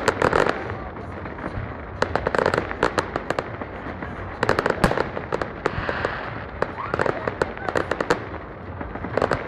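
Aerial fireworks display going off in clusters of rapid cracks and pops, a fresh cluster every couple of seconds.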